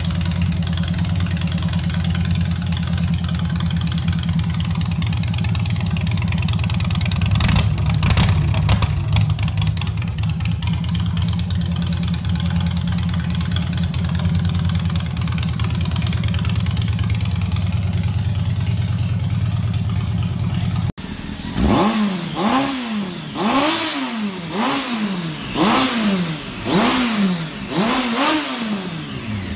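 A V-twin motorcycle engine with a two-into-one exhaust idling steadily, with a few knocks about eight seconds in. After a cut about two-thirds of the way through, a motorcycle engine is revved in quick throttle blips, about one a second.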